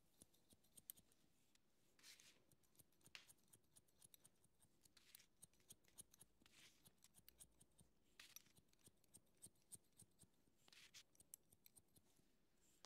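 Barber's scissors snipping hair, faint crisp snips coming in quick runs, with a few short soft hissing swishes in between.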